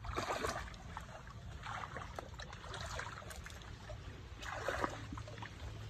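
Faint sloshing and splashing of hands groping through shallow, muddy ditch water for shrimp, in a few separate swishes.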